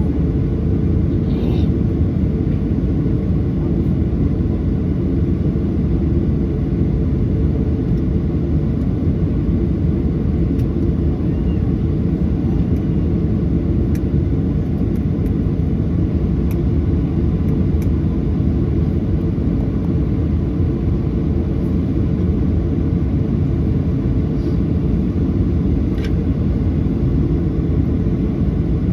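Steady cabin rumble of a Boeing 737-800 with CFM56-7B engines, heard from inside the passenger cabin, holding an even level throughout, with a few faint ticks.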